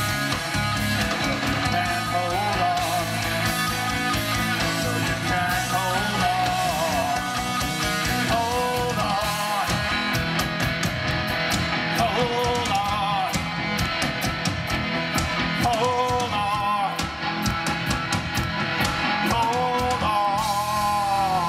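Live rock band playing an instrumental passage: a lead line of bending notes over electric guitar, bass and drums.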